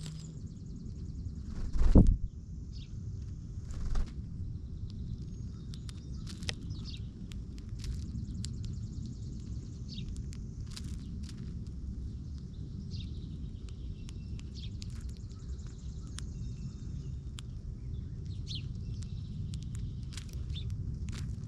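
Small birds chirping again and again at a bird feeder, with a high trilling note running through most of it, over a steady low rumble. A loud thump comes about two seconds in and a smaller one about two seconds later.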